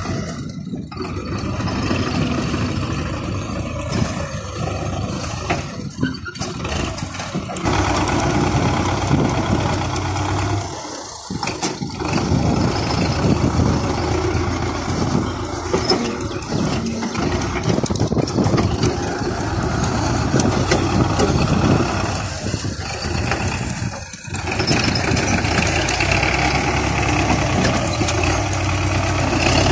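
Belarus MTZ-50 tractor's four-cylinder diesel engine running while the tractor works its front-end loader. The engine is steady and loud, with brief drops about 6, 11 and 24 seconds in.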